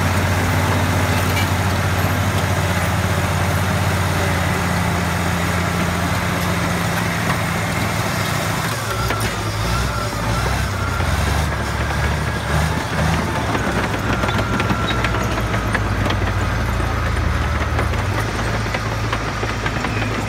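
Caterpillar crawler loader's diesel engine running steadily while working. Its note shifts lower and heavier about nine seconds in, with light rattling above it.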